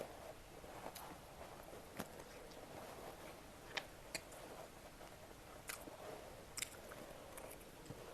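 A person chewing steamed momo dumplings, soft and close, with a few short sharp clicks and smacks now and then.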